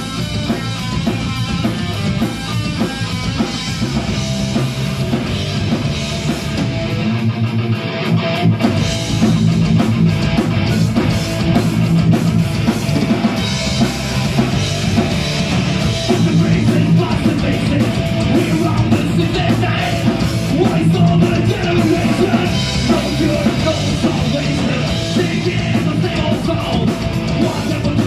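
A live heavy rock band plays loudly: distorted electric guitar over a driving drum kit with crashing cymbals. The deepest bass drops out briefly about seven seconds in.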